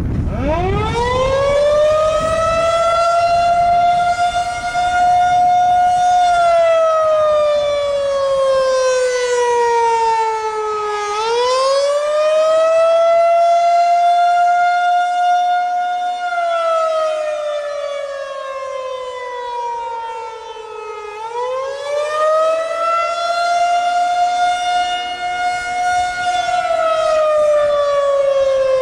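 Federal Signal 2001-130 rotating electromechanical warning siren starting up and sounding the attack (wail) signal. It winds up from silence to its top pitch, holds for a few seconds, slides down, then winds back up again, about every ten seconds.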